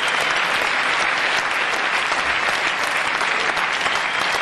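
A large crowd applauding steadily, many hands clapping at once.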